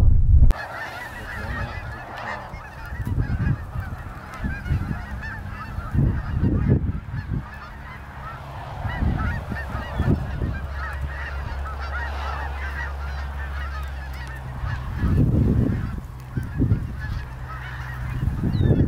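A large flock of geese honking in flight overhead, with many calls overlapping without a break.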